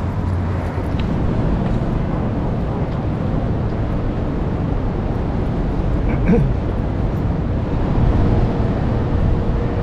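Steady low rumble of outdoor city ambience, with faint voices briefly about six seconds in.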